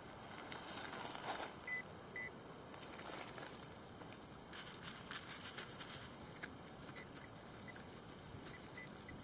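Hand digger and hands scraping and rustling through loose soil, dry grass and leaves, in several short bursts. Two brief faint beeps come about two seconds in.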